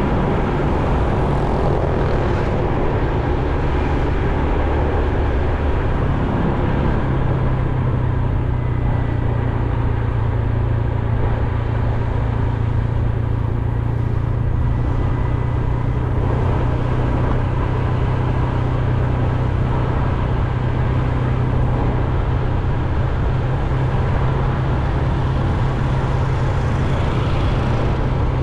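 Motor vehicle engine running steadily with road noise. Its pitch shifts once about six seconds in, then holds steady.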